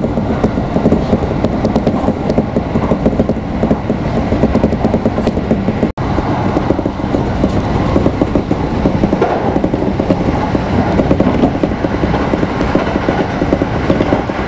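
Kintetsu electric train running at speed, heard from inside the carriage: a steady rumble of wheels on rail with light clicking. The sound drops out for an instant about six seconds in.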